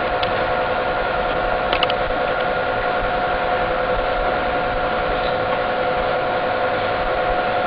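Steady hiss with a constant even whine, unchanging throughout, the background noise of an old home-video recording with nobody speaking. A faint click about two seconds in.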